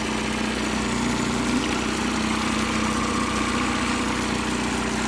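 Nissan 9.8 hp four-stroke outboard motor running steadily with its lower unit in a tank of water. Its freshly cleaned carburetor keeps it running smoothly.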